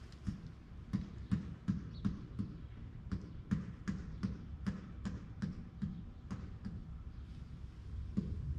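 Footsteps of a person walking in sandals on a stone walkway, an even pace of about two or three steps a second.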